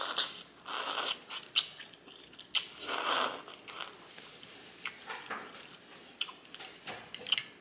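A person eating instant ramen noodles close to the microphone: three loud slurps in the first three seconds or so, then chewing with soft mouth clicks.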